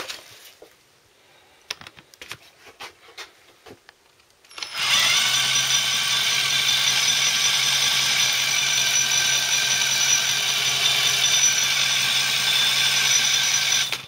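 A few faint handling clicks, then about five seconds in an electric drill starts up, spinning the Honda CBF125 engine's crankshaft through a socket on the flywheel nut. It runs with a steady whine for about nine seconds, then stops suddenly. The engine is turning over with the starter and gearbox disconnected.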